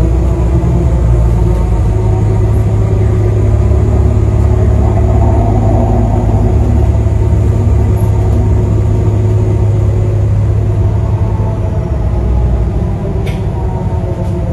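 Nova Bus city bus heard from inside the passenger cabin: a loud, steady low engine drone whose pitch rises and falls as the bus changes speed, easing off near the end. A single sharp click comes about 13 seconds in.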